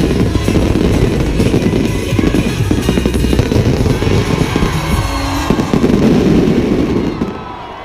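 A dense, rapid barrage of firework bangs and crackling, with music playing at the same time. The barrage dies away about seven seconds in.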